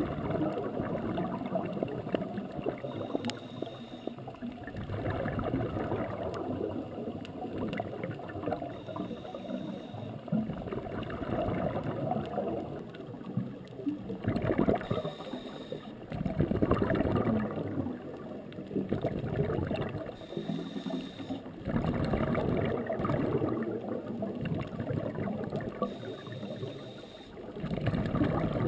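Scuba diver breathing through a regulator underwater: a short inhalation roughly every five to six seconds, each followed by a longer rush of exhaled bubbles.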